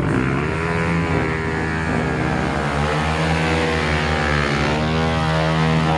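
Motorcycle engine held at high revs for a stunt burnout, spinning the rear tyre to make smoke and burst it. The pitch dips briefly about a second in, then climbs and holds.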